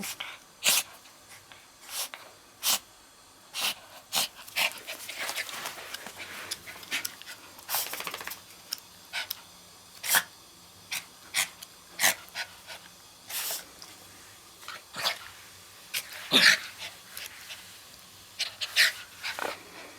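A dog making short, breathy, noisy huffs at irregular intervals, his odd attempt at a growl, since he doesn't really know how to growl.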